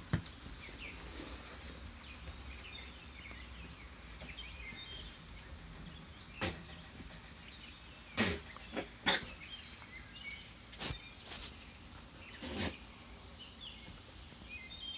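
Quiet rural background with faint birds chirping, broken by about half a dozen short sharp sounds from the dogs and goat moving about on the concrete porch, the loudest a little past halfway.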